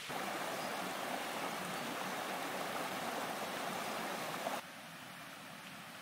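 A rocky forest stream rushing steadily over stones. The rush cuts off abruptly about four and a half seconds in, leaving a quieter forest hiss.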